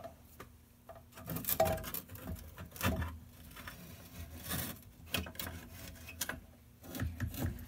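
Sheet-metal case of a 1978 L&R T-7 ultrasonic cleaner generator being handled as its front panel and chassis are worked loose and slid out of the housing: scattered metal clinks, knocks and scraping, with a short squeak about one and a half seconds in.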